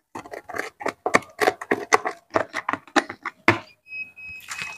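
Quick, irregular scraping and tapping clicks as dirt is cleaned out of the inside of a rice cooker's metal body. A thin steady high tone starts near the end.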